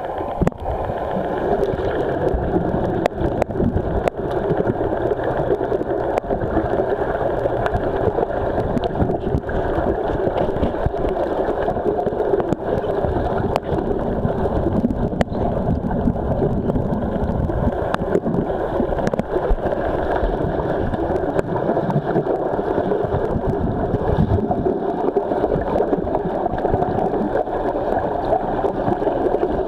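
Pool water heard underwater: a steady, muffled rushing churn with many small clicks and bubbling as swimmers in fins move about close to the microphone.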